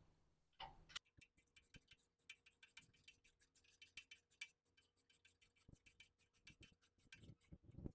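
Socket ratchet clicking in a quick, even run of faint ticks as long bolts are tightened down.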